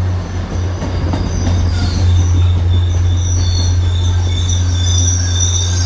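MBTA commuter train's passenger coaches rolling past along the platform, with a loud steady low diesel hum and high-pitched wheel squeals that come and go, thickening from about two seconds in.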